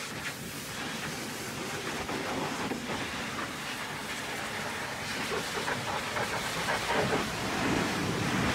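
High-pressure washer jet blasting mud off a truck's tyres and chassis: a steady hiss of spray with water spattering, a little louder near the end.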